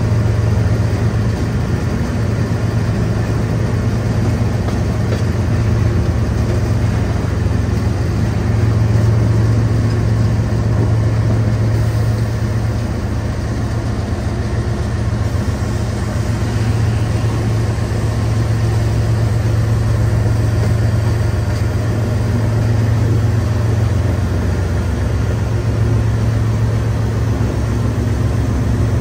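Engine running steadily at one speed: a strong, even low hum that holds its pitch throughout.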